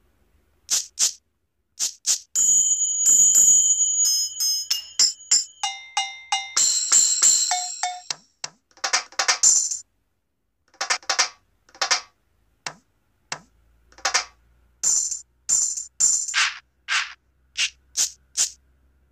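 Sampled percussion from a mobile octapad app, with pads tapped one at a time: short bright hits, some ringing with a metallic tone. A busy run of overlapping hits and ringing notes comes about two to nine seconds in, then single sharp hits spaced about half a second to a second apart.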